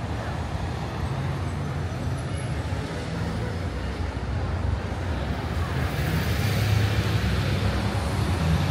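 Street traffic: cars driving past on a town road, with a low engine hum. It grows louder near the end as a vehicle comes closer.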